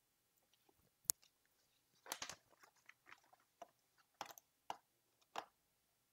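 Faint, irregular short clicks and crackly noises over near silence: one sharp click about a second in, a small cluster a second later, then a few more spaced out.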